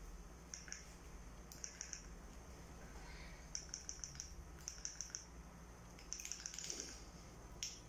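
Faint, short trains of rapid high-pitched clicks or chirps, three to five pulses each, repeating in groups about a second apart.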